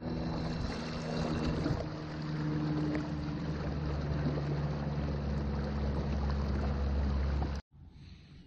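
A motor running steadily: a low drone with several steady hum tones under a hiss. It stops abruptly near the end, leaving only a faint background.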